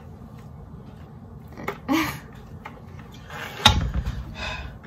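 Silicone spatula scraping cookie dough off the beaters of a hand mixer that is switched off, with a single sharp knock about three and a half seconds in and a brief low thud after it.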